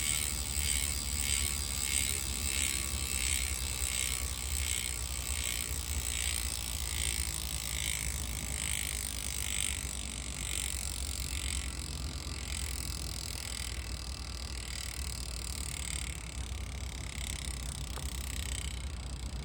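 Chris King rear hub freewheeling, its ring-drive ratchet giving the well-known high-pitched buzz. The buzz pulses in a steady rhythm that slows, and it fades slightly as the wheel spins down.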